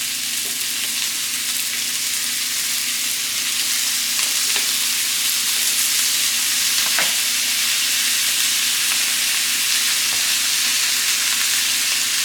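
Steaks searing in a very hot skillet with butter, rosemary, thyme and garlic: a steady loud sizzle with occasional small pops and spatters, growing a little louder about four seconds in.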